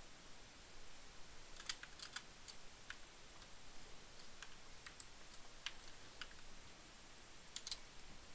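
Faint, irregular keystrokes on a computer keyboard, with a few quick clusters of taps.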